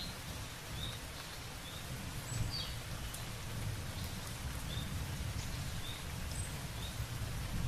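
Steady rain hiss over a low rumble, with a bird giving short chirps about once a second.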